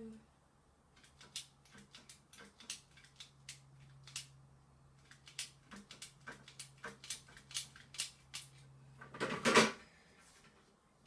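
Hand tool stripping the insulation off thick siren cable: a run of irregular small clicks and snips, with one louder burst of noise about nine and a half seconds in.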